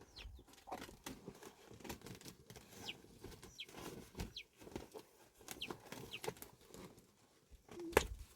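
Short, high, falling chirps from birds, repeated every second or so, over scattered rustles and knocks of handling work. A sharp click comes near the end.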